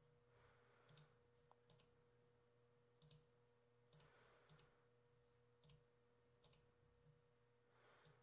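Near silence with faint computer mouse clicks, single clicks about a second apart, over a faint steady hum.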